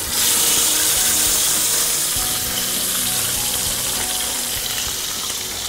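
A whole European sea bass sizzling in hot oil as it is laid into a frying pan. The loud hiss starts abruptly and slowly eases off.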